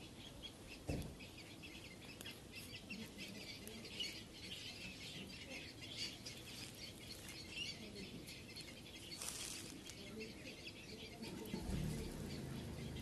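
Small birds chirping and twittering in the background in many short, high calls. A soft knock comes about a second in, and a low hum starts near the end.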